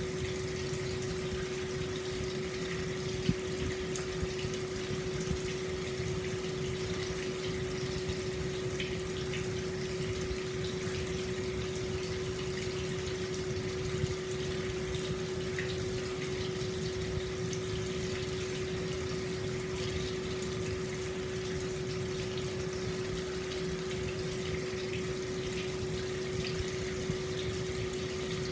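Hot-spring water flowing steadily into an open-air stone bath, an even rush of water with a steady hum underneath and a few small drips or splashes.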